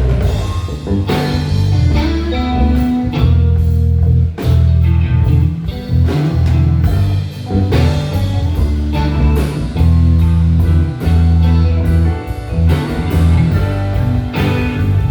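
Live soul band playing an instrumental passage between sung lines: electric bass, drum kit, keyboards and guitar, with no vocals.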